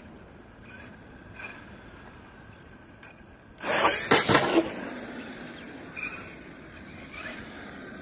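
RC monster truck driving hard toward the microphone: a sudden loud rush of motor and tyre noise about three and a half seconds in, with a few sharp knocks as it flips backwards and comes down, then fading away.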